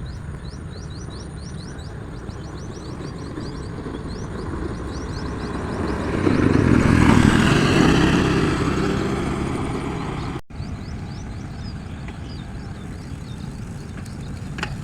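A motor vehicle passes by, its noise swelling to loudest about seven seconds in and dying away by about ten seconds, over a steady rhythmic chirping of insects.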